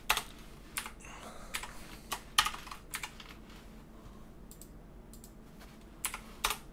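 Computer keyboard typing: irregular single key presses, with a pause of a couple of seconds in the middle and a few more presses near the end.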